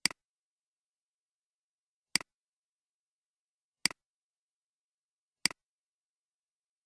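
Computer mouse button clicked four times, a second or two apart, each click a sharp press followed at once by a fainter release.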